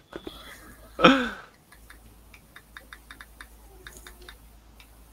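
A short burst of laughter about a second in, then a run of faint, irregular clicks of keyboard keys being typed.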